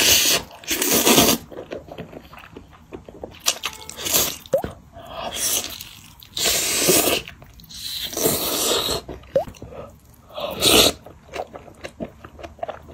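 Noodles being slurped from a bowl of spicy malatang soup, in several separate long slurps, with biting and chewing of a roasted chicken thigh between them.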